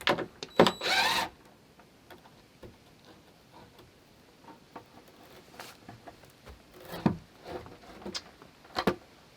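Wooden door planks being handled: a loud scraping rub about a second in, then scattered light wooden knocks and clicks.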